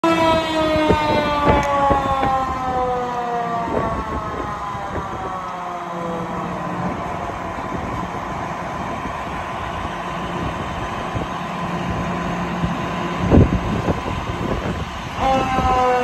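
Fire engine's mechanical siren winding down, its wail falling slowly in pitch and fading over several seconds, with an engine running underneath. There is a thump about 13 seconds in, and the siren winds up again shortly before the end.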